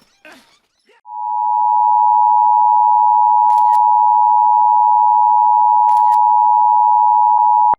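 Emergency Alert System attention signal: the loud, steady two-tone alarm tone. It starts about a second in, holds unchanged and cuts off suddenly near the end.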